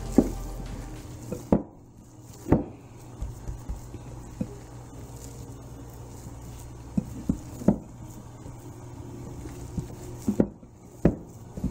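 Hands kneading a wet meatloaf mix of ground meat, egg and breadcrumbs in a glass bowl: soft squishing and patting, with a few short, sharp knocks scattered through as the hands press down against the bowl.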